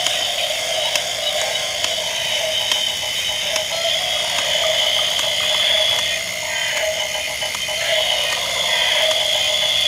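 Battery-powered walking toys whirring and clicking steadily as their small geared motors drive their legs.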